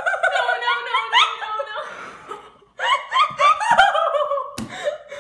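People laughing with high-pitched giggles, in two bouts with a short break about two and a half seconds in. A sharp knock comes near the end.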